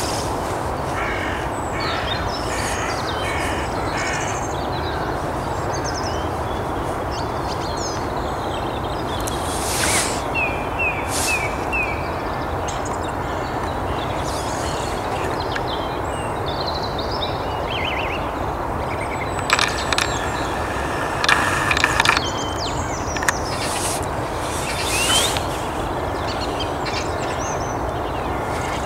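Early-morning birds calling and chirping over a steady low background rumble, with louder harsh calls about ten seconds in and again between about twenty and twenty-five seconds.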